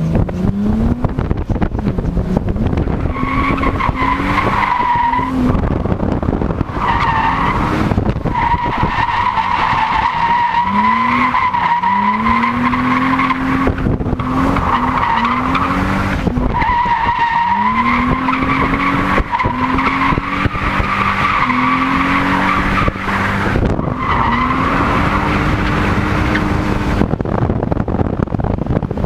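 BMW E30's M20B27 straight-six engine revving up again and again while the car drifts, with the tyres squealing in long stretches that break off and start again every few seconds.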